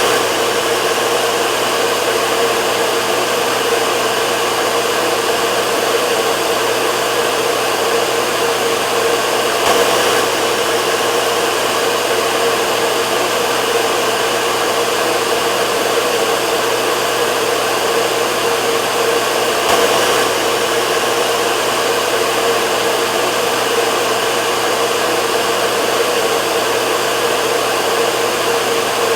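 Hair dryer running continuously: a steady rush of blown air over a constant motor hum, with slight swells about every ten seconds.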